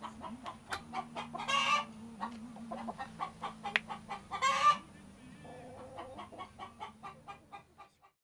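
Chickens clucking in short, repeated notes, with a louder brief squawk about a second and a half in and another at about four and a half seconds. The sound stops just before the end.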